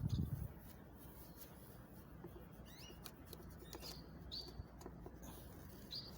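A small cage bird giving a few faint, short high chirps, scattered a second or so apart, with some light ticks in between.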